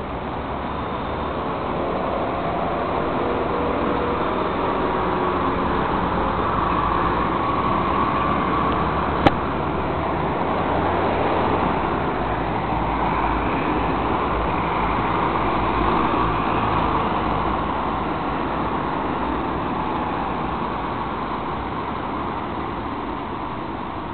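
Road traffic on a city street: cars and a van passing, the noise swelling and fading as they go by. One sharp click about nine seconds in.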